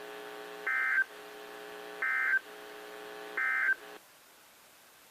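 NOAA Weather Radio SAME end-of-message data signal from a Sangean CL-100 weather radio: three short digital bursts about 1.4 seconds apart, marking the end of the required weekly test broadcast. A steady hum from the radio runs under them and cuts off about four seconds in.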